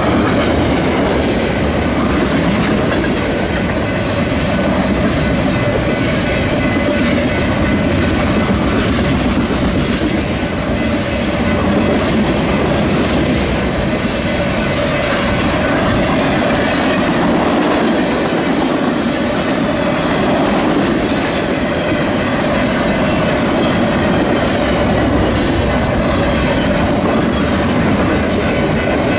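Freight cars of a mixed manifest train rolling steadily past close by: a continuous rumble and clatter of steel wheels on the rails.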